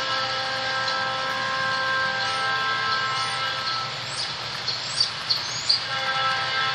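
Loaded coal train rolling past, with a steady rumble and several steady high-pitched ringing tones over it. The tones fade out about halfway through and return near the end, and a few short sharp clicks and chirps come in the second half.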